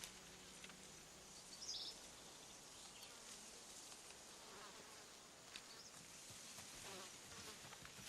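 Faint ambience of insects buzzing, with a brief high chirp about two seconds in.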